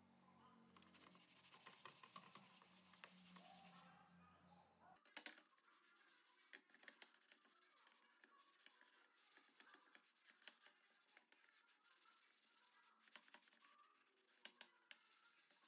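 Faint scratchy rubbing of a sponge scrubbed back and forth over a wet, soapy metal plate, in many short strokes.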